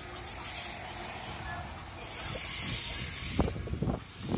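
Steam hissing in surges from a 1948 Anglo-Franco-Belge 762 mm gauge steam locomotive as it pulls away, over a low rumble of the carriages rolling past. A couple of sharp knocks come near the end.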